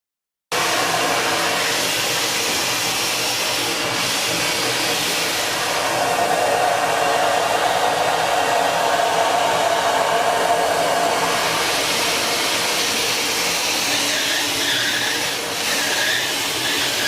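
Perfectionist ProSilence 59 vacuum cleaner running, starting about half a second in, its hard-floor nozzle pushed over tiles. The nozzle squeaks and stutters, which the owner presumes comes from its silicone lips; the squeaks show most clearly as short repeated high squeals near the end.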